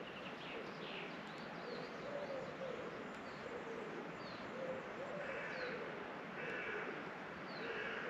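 Woodland birdsong: a low bird call repeated in short notes, with brief high, falling chirps from smaller birds, over a steady hiss of wind.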